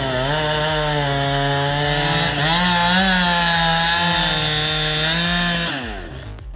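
Chainsaw engine running at high speed while cutting wood, its pitch wavering as the chain works through the cut, then dropping away near the end as the saw is let off.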